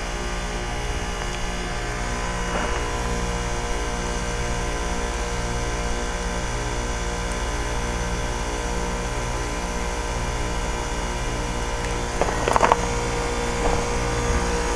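2003 Carrier TECH2000 4-ton heat pump running steadily in its defrost cycle, a constant mechanical hum with a low, even pulsing, as the ice melts off the outdoor coil. A few brief knocks come about twelve seconds in.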